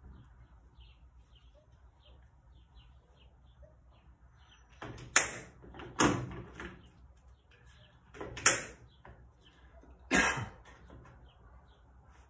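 Adhesive tape pulled off a roll in four short, loud rips, from about five seconds in, as leather wraps around a steel nail are taped up.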